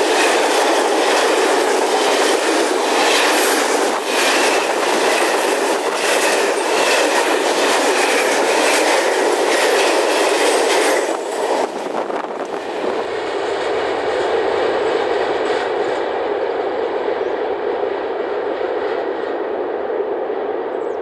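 Freight train wagons rolling past close at track level: a steady rumble of steel wheels on rail with repeated clickety-clack wheel clicks. About eleven seconds in the sound drops and turns duller, and the clicks stop.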